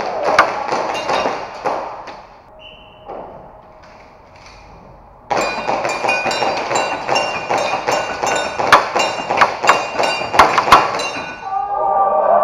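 Airsoft pistol shots and BBs striking a row of knock-down plate targets, a dense run of sharp hits and clanks that starts suddenly about five seconds in and runs to the end. Before it, a clatter of hits and a short high beep a little under three seconds in.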